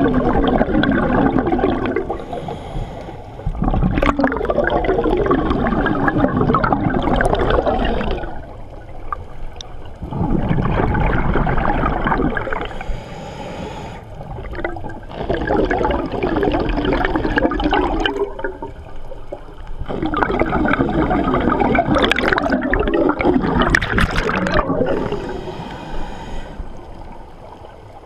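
Scuba regulator breathing heard underwater: bubbling exhalations lasting a few seconds each, about every five seconds, with quieter pauses between breaths.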